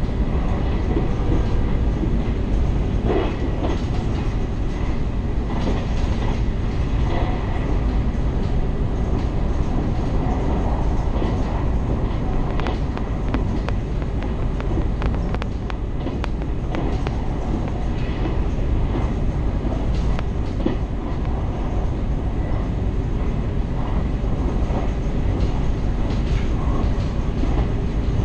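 Passenger train running, heard from inside the car: a steady low rumble of wheels on rails, with scattered clicks over the rail joints.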